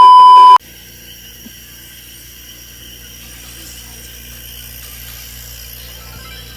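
A loud, pure beep tone, the standard censor bleep, lasting about half a second and cutting off abruptly near the start. Then a much quieter steady mechanical hum with a light hiss.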